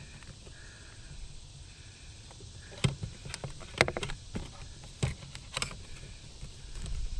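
A handful of sharp clicks and knocks, bunched between about three and six seconds in, as wires with spade connectors are handled and pushed onto the terminals of an RV rooftop air conditioner's run capacitor. A steady low rumble runs underneath.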